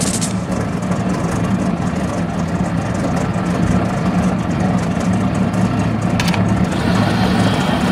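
The Il Tempo Gigante racing car's engine idling with a steady, even hum, with one short clank about six seconds in.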